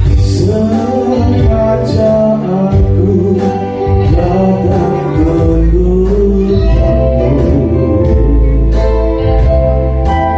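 Live band playing through a PA system: a man sings into a microphone over keyboard and electric guitar, with a heavy bass line.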